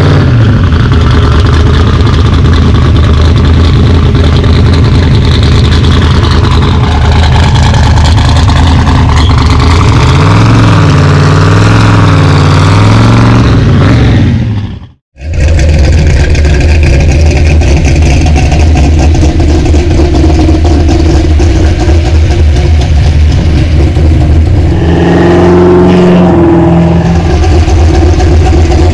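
Loud exhaust of a 1967 Ford Mustang Fastback idling, with a few throttle blips as it moves off. After a sudden cut about halfway, the loud exhaust of a 1965 Ford Mustang widebody idles, with a short rev a few seconds before the end.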